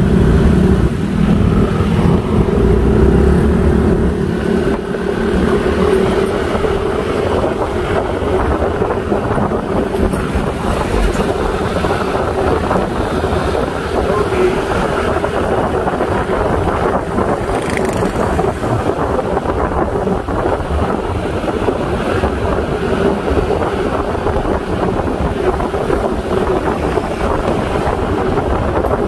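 Motorbike engine running steadily at cruising speed, with wind rushing over the microphone as it rides.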